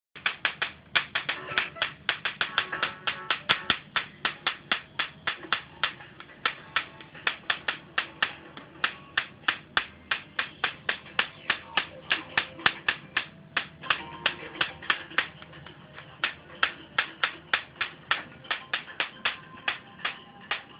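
High-voltage arcing inside an opened CRT television: sharp snapping cracks about three times a second, repeating steadily, with the TV's programme sound faintly underneath.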